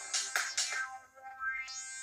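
A built-in electronic melody playing from a 2008 Samsung Anycall SPH-C2205 slide phone's speaker: a quick run of sharp beats, then synth notes with a rising sweep near the end.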